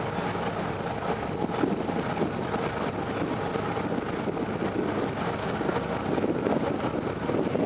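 Steady rushing noise aboard a moving ferry: engine drone and water along the hull, with wind buffeting the microphone.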